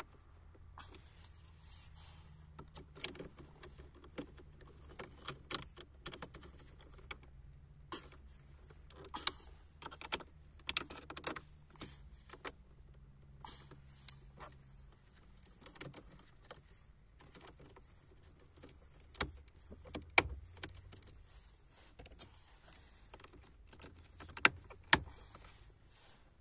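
Plastic dashboard trim and a car stereo unit being handled and pressed into the dash: scattered clicks and knocks, with a few sharp snaps in the second half as the trim bezel clips into place.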